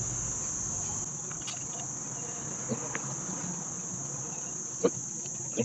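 A steady high-pitched whine or trill, like a cricket's, runs throughout. A few light clicks and taps sound as things are moved about while the workbench is cleaned up.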